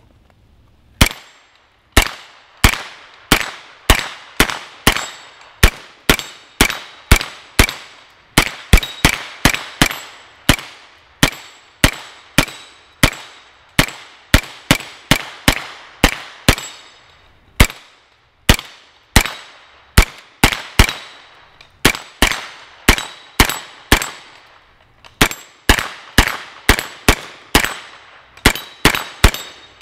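Freedom Ordnance FX-9 9mm semi-automatic carbine firing a long string of single shots from a 50-round drum, about two a second with a few short pauses, until the drum is nearly empty at the end.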